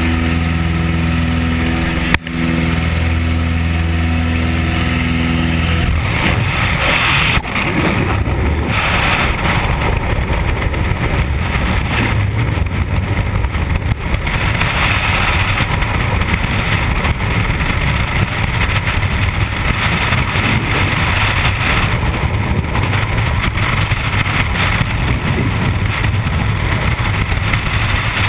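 A jump plane's propeller engine drones steadily at the open door. About six seconds in, it gives way to the steady rush of freefall wind buffeting the camera microphone.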